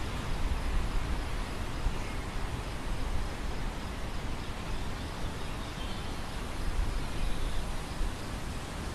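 Wind blowing across an open grain field: a steady rushing hiss, with an uneven low rumble that swells in a couple of stronger gusts.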